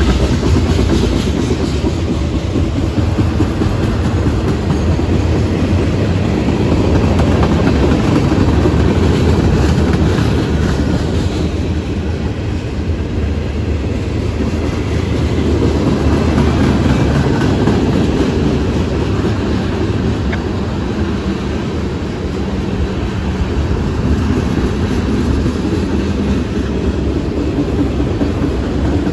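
Freight cars of a mixed manifest train rolling steadily past: a continuous rumble with the clickety-clack of steel wheels on the rail joints.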